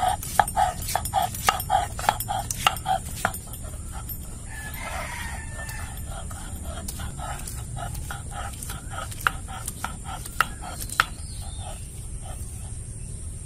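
Knife chopping garlic cloves on a wooden board: a rapid run of knocks about three a second, strongest for the first few seconds and then lighter. A rooster crows in the background about five seconds in.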